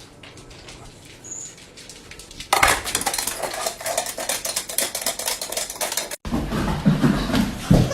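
Rapid, dense clattering of kitchenware, starting about two and a half seconds in after a quieter stretch of faint clicks and stopping abruptly at a cut near the end.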